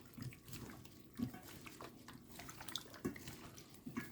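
Chicken wings being mixed in a wet buttermilk and egg marinade: faint, irregular squelches and sloshes.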